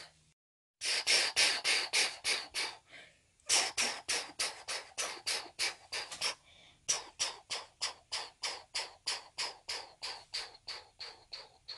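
A person imitating a steam train's chuffing with their mouth: quick 'ch-ch-ch' puffs about five a second, in three runs with short breaks between them, growing fainter toward the end.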